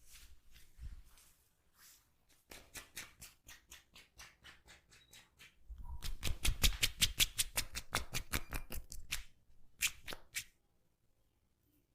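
Hands tapping rapidly and rhythmically in a massage, several taps a second: a lighter run, then a louder run with dull thuds lasting about three and a half seconds, then a few last taps.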